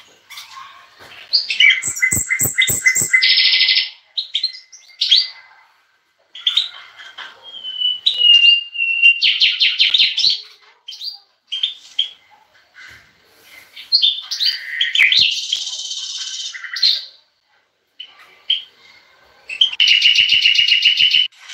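Caged songbirds singing in about four separate bursts of high, quick twittering and trilled phrases with short pauses between them. A few sharp clicks come about two to three seconds in.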